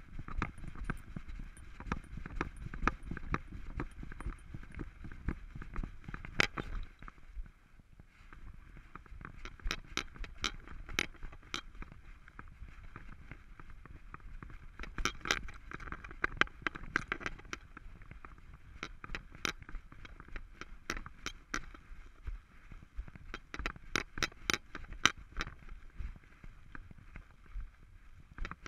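Irregular clicks, rattles and scrapes from a GoPro riding on an Alaskan Malamute's back as the dog walks, over a low rumble of the camera jostling with her movement. There is a quieter stretch about eight seconds in.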